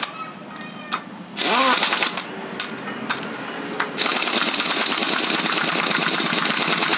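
Pneumatic impact wrench (air gun) driving the clutch cover plate bolts tight on a motorcycle engine. It gives a short burst about a second and a half in, a few small clicks, and then a long run of rapid hammering from about four seconds in.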